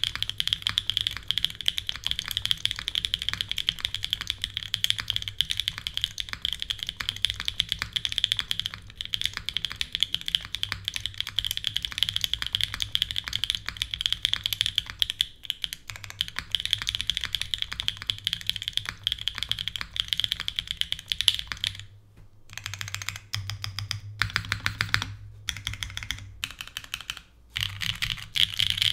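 Continuous typing on a custom Hoshizora mechanical keyboard with lubed Hoshizora linear switches (retooled MX Black style), a full carbon-fibre plate in an O-ring mount, no foam, and GMK keycaps. It is a dense stream of keystroke clacks with a few brief pauses in the last third.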